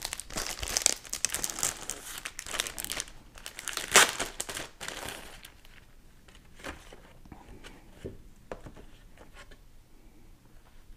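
Cardboard packaging of a Pinlock lens insert crinkling and rustling as it is handled and opened by gloved hands. It is busiest in the first five seconds with a sharp crackle about four seconds in, then fades to a few faint rustles and light clicks.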